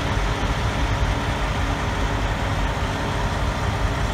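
Heavy-duty wrecker tow truck's diesel engine idling close by, running steadily with a deep low rumble.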